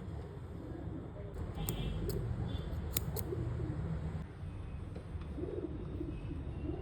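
Pigeons cooing in repeated low, wavering calls, mostly in the second half, over a steady low hum. A few sharp clicks come in the first half.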